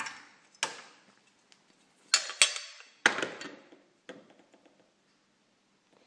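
A hard drive being handled and set into a TiVo's hard drive carrier: about five sharp knocks and clatters, the loudest two close together about two seconds in and another a second later.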